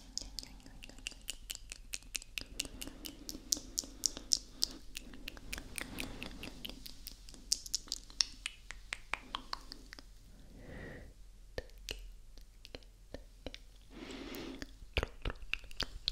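Wet mouth sounds right against a microphone: rapid tongue clicks and lip smacks, several a second, with soft breathy whispering. The clicks thin out about two-thirds of the way through into a breathier stretch, then pick up again near the end.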